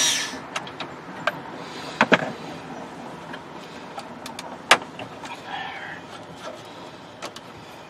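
Scattered plastic clicks and knocks as the climate control unit is worked loose from the dash trim by hand, the sharpest about two seconds in and just under five seconds in.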